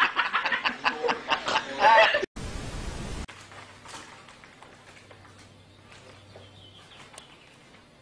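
People laughing in quick repeated bursts for about two seconds, cut off abruptly. A short burst of hiss follows, then only faint room tone with a low hum and a few soft clicks.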